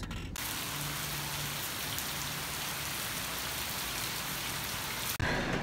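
Steady rain falling on a wet, puddled gravel driveway and grass, an even hiss of drops. It starts suddenly about a third of a second in and cuts off just before the end.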